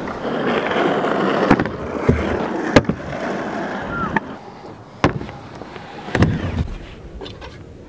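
Scooter wheels rolling over a concrete skatepark, a rough rumble that is loudest for the first few seconds and then eases, broken by about six sharp clacks and knocks of scooter decks and wheels hitting the ground and ramp edges.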